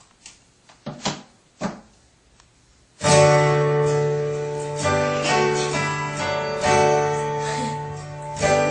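A few brief, faint sounds, then strummed acoustic guitar music that starts abruptly about three seconds in and carries on steadily.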